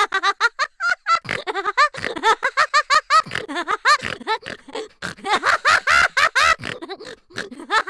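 Giggling laughter: a long run of quick, high ha-ha pulses, several a second, with a short break about five seconds in.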